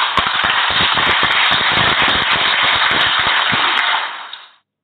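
A loud burst of crackling hiss with scattered sharp pops, like a fireworks or crackle sound effect, fading out near the end.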